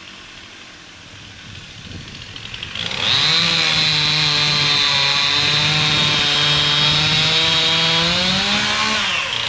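A small engine revs up over the first three seconds, runs steadily at high speed, climbs a little higher near the end and then drops away.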